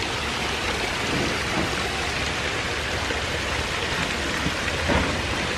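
Steady, rain-like splashing of water in a tank crowded with baby catfish, from water spraying in through inlet pipes and masses of fingerlings churning the surface.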